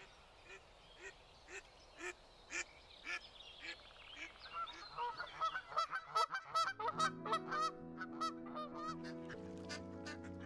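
A flock of birds calling, short repeated calls about two a second at first, thickening into a denser chorus of overlapping calls partway through. Past the middle, sustained music chords come in under the calls.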